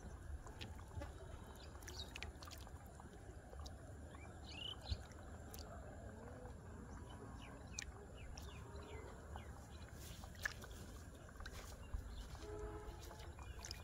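Faint outdoor ambience: a steady low rumble with faint bird chirps and occasional small clicks and splashes as a hand works in shallow muddy water. Near the end a faint pitched call or tone starts.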